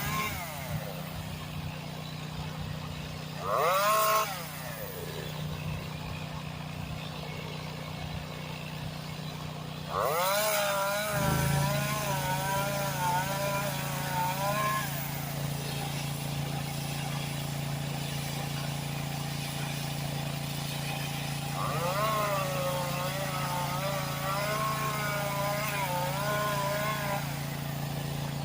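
Small Echo two-stroke chainsaw idling, its throttle opened three times: a short rev about four seconds in, then two longer runs at high revs with the pitch wavering, about ten and twenty-two seconds in.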